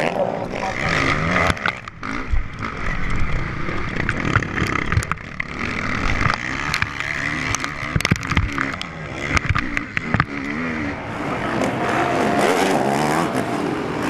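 Motocross motorcycle engines revving up and down as the bikes race over the dirt track, with a stretch of many sharp knocks and clatters in the middle.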